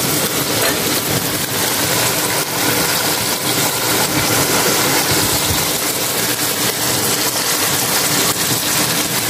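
Chicken pieces and green chillies frying in plenty of hot oil in a karahi: a steady, dense sizzle with fine crackles.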